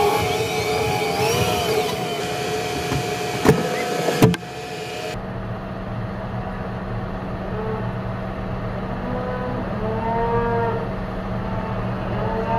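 John Deere 6155R tractor running, heard first from inside the cab as a steady whine with two sharp knocks about three and a half and four seconds in, then as a steady low engine hum. Over the hum, cattle moo several times in the second half.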